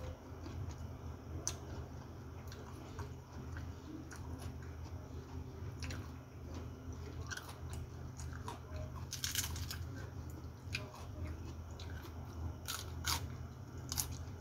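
Close-up chewing and crunching of food eaten by hand, with many small scattered clicks of mouth and fingers and a few louder ones past the middle and near the end. A low steady hum lies under it.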